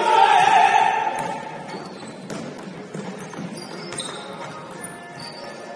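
Sounds of a basketball game in a gym: a loud voice shouting for about the first second and a half, then scattered ball bounces and brief sneaker squeaks on the court.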